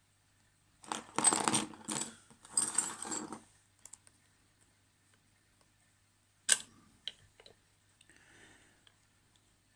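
Metal lock picks and a tension tool clinking and scraping against a Yale 713 wafer padlock in several rattling bursts, then one sharp click and a few lighter ticks.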